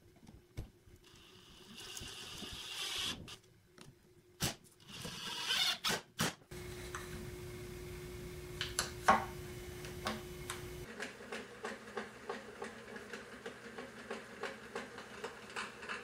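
Workshop work sounds: a few clicks and short drill-like bursts, then, about six seconds in, a steady motor hum that gives way near eleven seconds to a regular ticking, two or three ticks a second, as the vintage Beaver 3700 drill press runs and drills into plywood.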